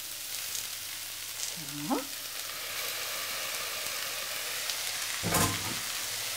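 Onions and cauliflower sizzling steadily in a frying pan while washed millet is tipped in from a metal sieve. About five seconds in, a single loud knock as the sieve is struck against the pan.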